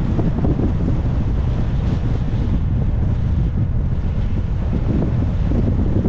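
Wind buffeting the microphone of a camera on a moving car, a steady low rumble.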